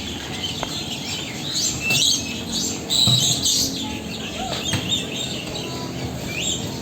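Many birds chirping and calling at once, a busy mix of short chirps and quick whistles, loudest about two and three seconds in.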